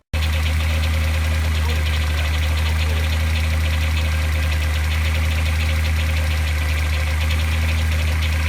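BMW M62 V8 engine running steadily at idle, with no revving.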